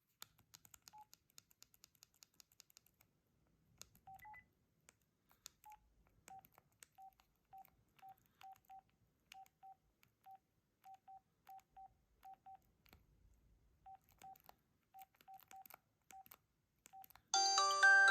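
LG LX150 mobile phone's keypad beeping: short, quiet beeps at one pitch, one per key press, at an uneven pace with faint clicks. Near the end a preloaded ringtone starts playing loudly as a bright melody.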